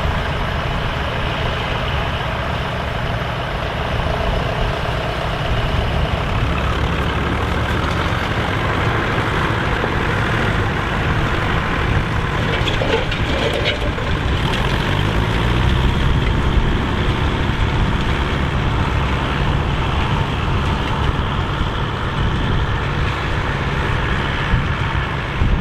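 Massey Ferguson 65 tandem tractor engines running steadily under load while pulling a plough. About halfway through, the engine speed rises.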